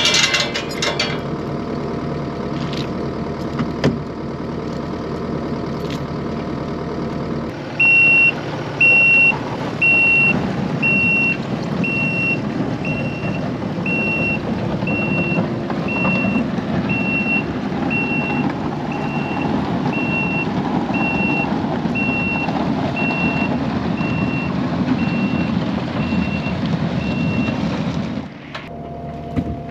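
Compact track loader's engine running. From about eight seconds in, its backup alarm beeps about once a second, some twenty times, as it reverses, towing the shed by a chain.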